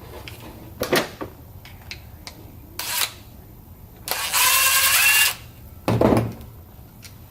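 A cordless impact driver runs for a little over a second, its motor whine rising as it backs out a screw. Sharp clicks and knocks of tool parts being handled come before and after.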